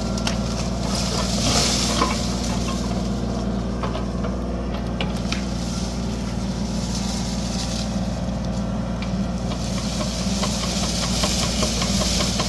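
Mini excavator's diesel engine running steadily under working load while it digs dirt, with a few short clanks and scrapes from the machine.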